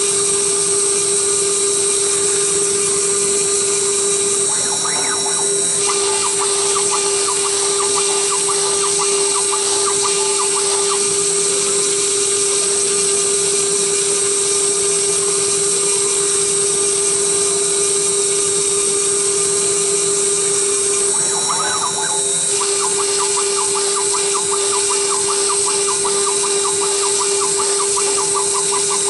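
Redsail CNC router's spindle running at speed while engraving a circuit board: a steady high whine over cutting noise. The sound shifts briefly about five seconds in and again about twenty-two seconds in.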